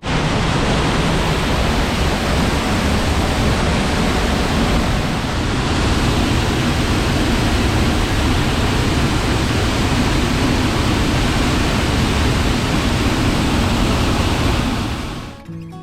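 Loud, steady roar of a waterfall heard up close, a dense rushing noise with a heavy low rumble, cutting off shortly before the end.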